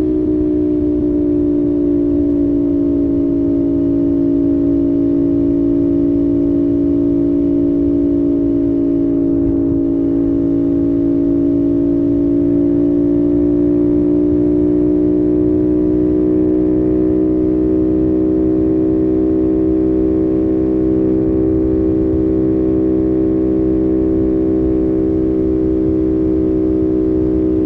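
CFMOTO 450SS parallel-twin engine pulling at a steady expressway cruise, one held gear, its note easing slightly and then rising gently from about halfway, with a rush of wind and road noise underneath.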